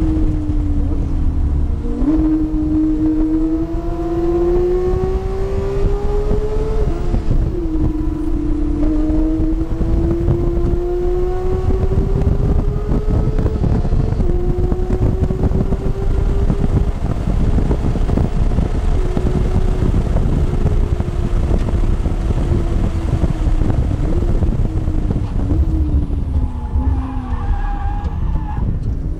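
Porsche sports car's engine heard from inside the cabin under hard acceleration in third gear: a steady engine note climbing slowly in pitch over road and wind rumble, with brief dips. Near the end it drops in steps with short blips as the car brakes hard and downshifts to second for a corner.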